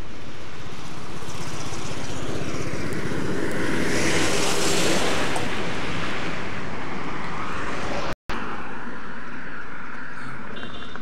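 A vehicle passing close by on the road: its noise swells to a peak about four to five seconds in and then fades, over steady outdoor background noise.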